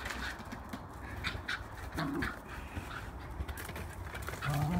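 A dog making short low vocal sounds while playing with a big ball: one about two seconds in and a louder one near the end. Birds chirp in the background.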